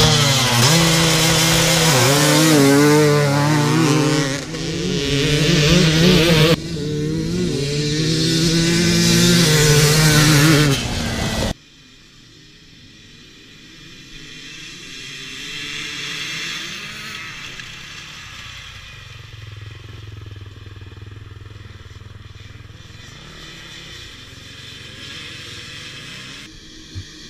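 Enduro dirt bike engine revving hard, its pitch rising and falling with the throttle. About eleven seconds in it cuts off abruptly, leaving a much quieter stretch with a faint engine in the distance.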